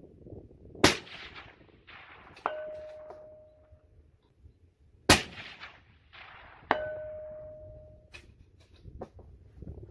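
Two rifle shots from a 300 Blackout firing subsonic loads, each followed about a second and a half later by the clang of the bullet hitting a steel plate target, which rings on for about a second and a half.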